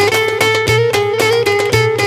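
Upbeat Turkish folk dance tune: a quick plucked-string melody over a steady, driving beat.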